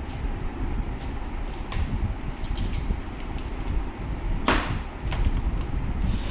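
Steady low rumble, like wind on the microphone, with a few light clicks and one louder, sharp scrape about four and a half seconds in.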